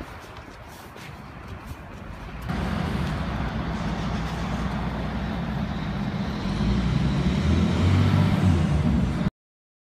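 A Rolls-Royce V12 car driving past on a wet street, its low engine note and tyre hiss growing louder as it comes close. Quieter street noise comes first, and the sound cuts off suddenly near the end.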